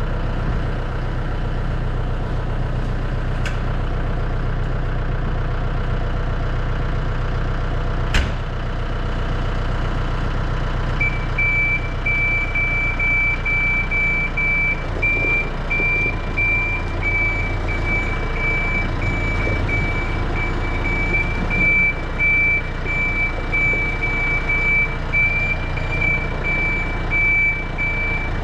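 Tractor engine running steadily while it moves the trailer, with a sharp clank about eight seconds in; from about eleven seconds in a backup alarm beeps repeatedly as the machine reverses.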